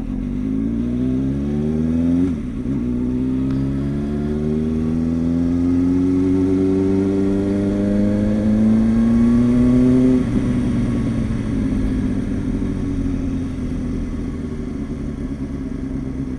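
Kawasaki ZX-6R 636's inline-four engine pulling away: its pitch climbs for about two seconds, drops at a gear change, then climbs slowly for about eight more seconds before falling off and holding steady at a lower pitch. Wind rumbles on the camera microphone underneath.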